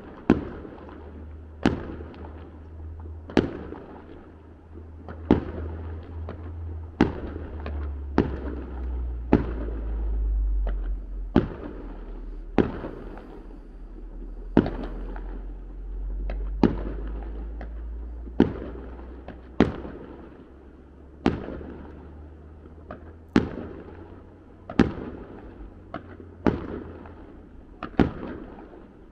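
Fireworks display: a steady run of sharp bangs from bursting shells, roughly one every second or so, each trailing off in an echo, over a low steady rumble.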